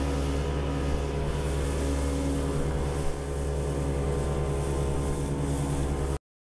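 Boat engine running steadily at cruising speed, with the rush of wind and water over the hull, cutting off abruptly near the end.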